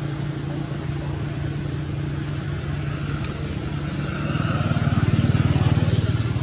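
A motor vehicle's engine running steadily, growing louder about four seconds in and easing off near the end.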